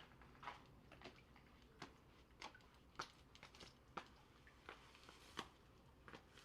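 Faint, irregular short clicks and taps, about one or two a second and sparser toward the end, over a very quiet background.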